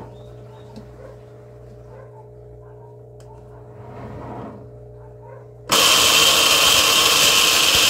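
Consul 7.5 kg top-loading washing machine running with a steady motor hum. About six seconds in, a sudden, very loud scraping noise breaks out from the drive mechanism and keeps going; the repairman takes it for something disengaging inside the transmission.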